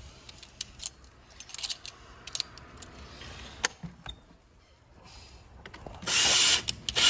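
Light clicks and knocks of handling, then a Ryobi cordless drill runs in a loud whining burst about six seconds in, pausing for a moment just before the end and starting again.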